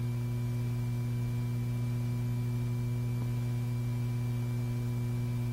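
Steady low electrical hum with fainter higher tones above it and a thin high whine, unchanging throughout: the background noise of an old film soundtrack between lines of narration.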